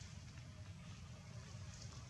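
Faint steady outdoor background: a low rumble with a light hiss over it and a few faint high ticks near the end.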